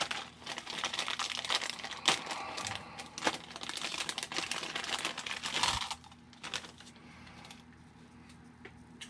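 Clear plastic parts bag crinkling as it is handled, with small clicks of the parts inside. The crinkling stops about six seconds in, leaving only faint handling noises.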